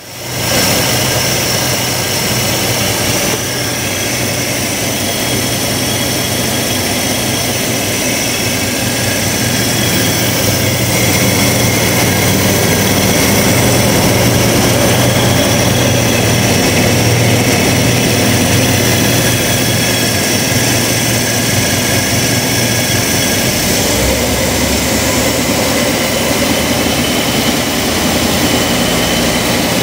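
1957 Pontiac Super Chief's 347 cubic-inch V8 idling steadily with the hood open.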